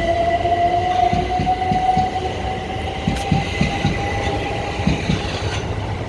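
Class 377 Electrostar electric train pulling out, its traction motors whining in a slowly rising pitch as it picks up speed, while the wheels knock over rail joints in an uneven clatter.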